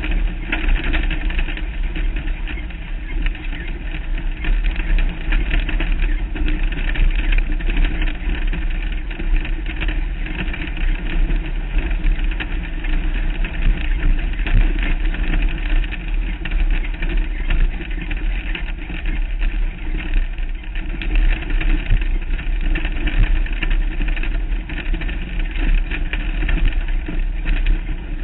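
Off-road race vehicle's engine running steadily at speed over a rough desert dirt track, heard from a hood-mounted camera, under a heavy low rumble with a few brief knocks from bumps.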